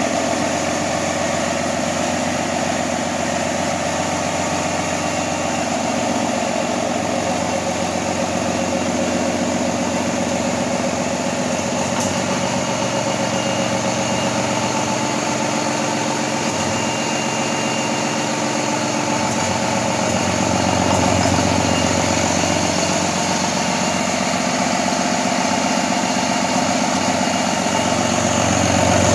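Turbocharged 24-valve Cummins ISB 5.9-litre inline-six diesel engine running steadily out of the truck on an engine stand during a test run, growing slightly louder about two-thirds of the way through.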